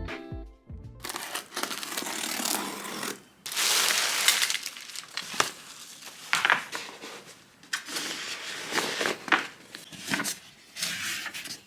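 Rustling and crinkling handling noise with uneven, sharp crackles.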